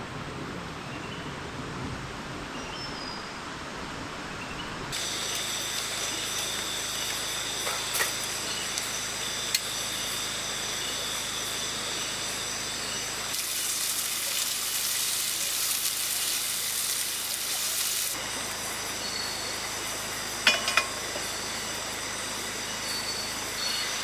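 Rainforest ambience, then the steady trilling of night insects. A loud hiss from the camp gas stove cooking runs for about five seconds in the middle and cuts off suddenly, with a few sharp clicks and a metallic clink of cookware.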